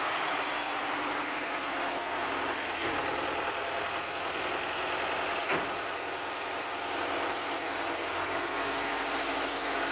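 A motor vehicle's engine running steadily, with two brief knocks, about three and five and a half seconds in.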